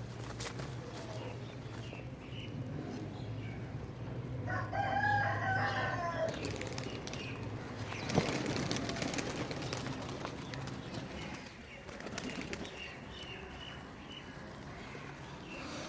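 Pigeons flapping their wings, with a short pitched call about five seconds in and a single sharp knock about eight seconds in.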